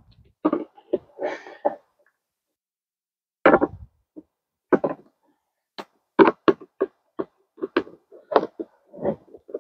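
Plastic compost tumbler parts knocking and clicking as they are handled and fastened together with a hand tool. The knocks are scattered at first and come thick and fast in the second half.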